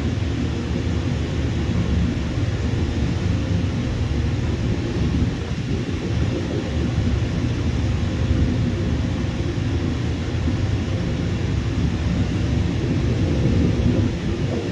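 Jet airliner engines making a steady low rumble, with a few faint steady tones above it.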